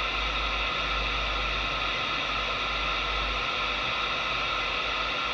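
Steady static hiss from a Galaxy 979 CB radio receiving with no signal coming in, heard through its speaker.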